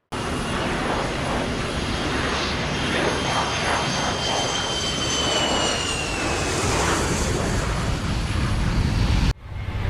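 Airplane engines at takeoff power: a loud, steady rush with a high whine that slides down in pitch partway through. It cuts off suddenly near the end, and a lower rumbling engine sound takes over.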